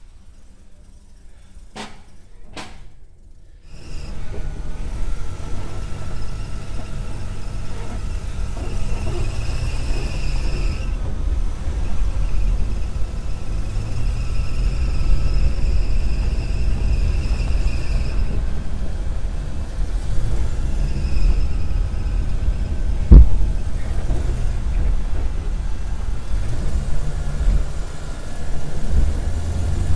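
Two short clicks, then about four seconds in the low, steady rumble of the 1964 Chevy Nova running sets in, with one sharp thump about two-thirds of the way through.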